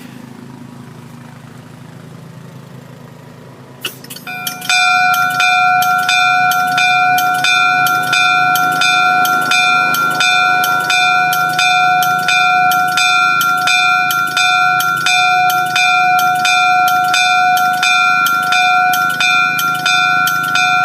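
Bronze locomotive bell from an MLW M636 diesel, swung by a Prime single-action pneumatic ringer on 100 psi air, ringing with evenly spaced strokes, about one and a half to two a second. The ringing starts about four seconds in, after a click, and keeps a steady hum between strokes.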